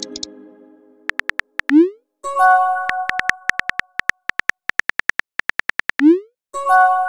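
Texting-app sound effects: a virtual phone keyboard's typing clicks in quick runs, about four or five a second, broken by two short rising pops and two bell-like chimes, one about two seconds in and one near the end.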